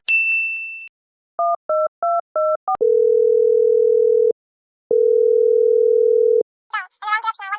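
Telephone sounds: a short high beep, four quick two-tone keypad beeps, then two long steady ringing tones of a call going through. A high-pitched voice starts near the end.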